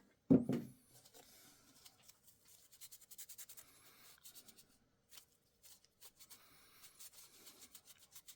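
A short knock about half a second in, then faint, scratchy rubbing in short strokes: a paper puzzle template, softened with denatured alcohol, being rubbed off small pieces of 3 mm craft plywood.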